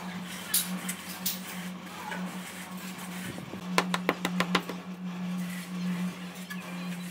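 Tiler's tools working a damp sand-and-cement floor bed: scraping from a straight-edge screed bar and trowel, with sharp clicks and a quick run of about six taps a little past halfway, over a steady low hum.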